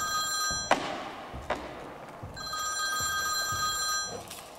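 Mobile phone ringing with a classic telephone-style ringtone. One ring stops with a click less than a second in, and a second ring of about two seconds follows.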